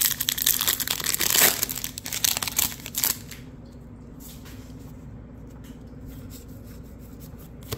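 Baseball trading cards being handled and slid against one another, a crisp rustling and crinkling for about the first three seconds, then only faint occasional ticks.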